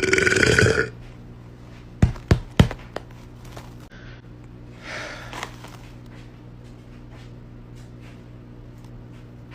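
A woman's burp, loud and drawn out, ending just under a second in. Then three sharp knocks in quick succession about two seconds in, and a faint short hiss around five seconds.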